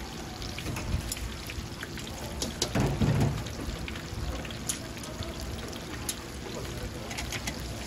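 Battered Korean fritters deep-frying in a wok of hot oil: a steady sizzle full of scattered sharp crackles and pops, swelling louder for a moment about three seconds in.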